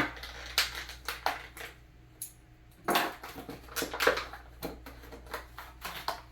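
Small Caldwell rail adapter being taken out of its packaging and handled: an irregular run of crackles and sharp clicks, with small hard parts knocking together.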